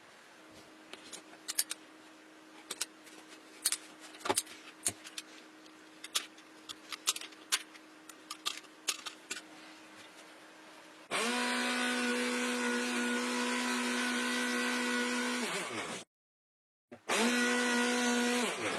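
Scattered clicks and knocks of parts being handled, then the small electric motor of a homemade vacuum cleaner switches on and runs with a steady whine. It winds down, and after a short break it runs again and winds down.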